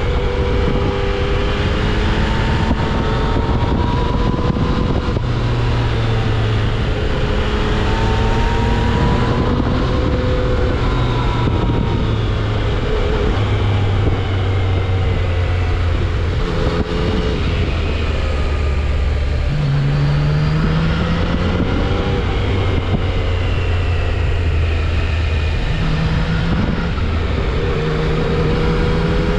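Yamaha XSR900's inline three-cylinder engine through its stock exhaust, riding through curves: the revs keep rising and falling, with stepwise jumps in pitch as it changes gear, over steady wind noise. The exhaust has the smooth stock tone that the rider calls a sewing machine sound.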